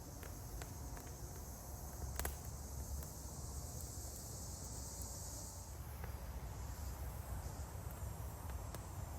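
Insects buzzing in a high steady hiss that fades about six seconds in, over a low rumble, with a few sharp clicks, the strongest about two seconds in.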